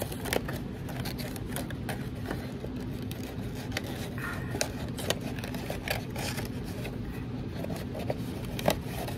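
Small clicks and rustles of hands handling a wind-up plastic butterfly and tucking it into a paper box, over a steady low background hum.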